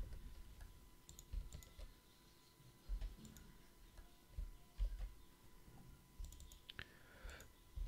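Faint, scattered clicks of a computer keyboard and mouse, a few isolated keystrokes and button presses about a second apart.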